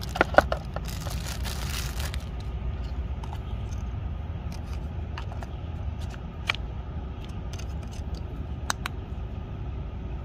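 Handling noise from fitting a battery into a GoPro Hero 10 camera: a plastic rustle, then a few sharp, scattered plastic clicks, over a steady low rumble of traffic.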